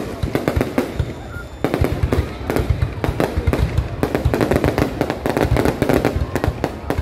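Aerial fireworks display: a rapid barrage of shell bursts and bangs in quick succession, easing briefly about a second in before picking up again densely.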